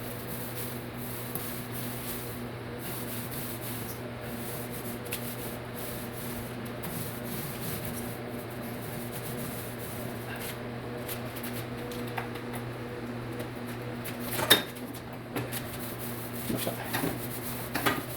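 Paint roller rubbing over a wall, over a steady low hum, with a sharp knock and a few clicks near the end.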